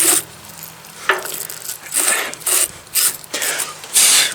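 Repeated short rasping strokes, roughly two a second and uneven, from a wire-brush battery terminal cleaner being worked and scraped to clear out corrosion dust.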